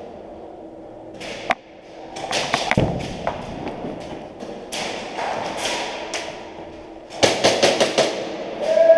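Indoor airsoft skirmish: sharp cracks of airsoft shots and BBs striking plywood walls, with thuds of movement in between. A quick string of about five shots comes a little after seven seconds in.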